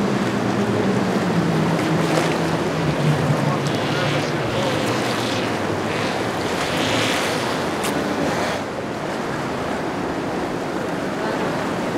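Surf and waves at a rough ocean inlet, with wind on the microphone and a boat engine droning low that fades over the first few seconds. A rushing hiss of water swells in the middle and drops away about two-thirds of the way through.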